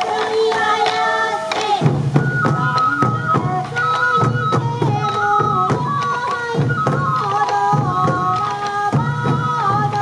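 Sansa odori festival music: many hip-hung taiko drums beaten in rhythm under a bamboo flute melody. A deeper sustained part joins about two seconds in and returns in phrases.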